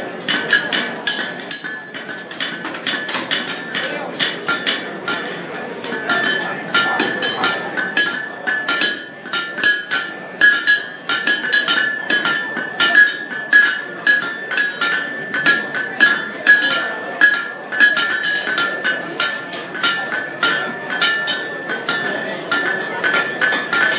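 Blacksmith's hand hammer forging hot steel on an anvil: a fast, steady run of blows, several a second, each with a bright metallic ring from the anvil.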